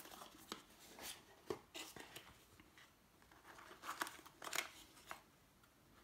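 Faint rustling, scraping and light clicks of a small cardboard box being opened by hand, its lid flaps and insert handled, with the busiest handling about four seconds in.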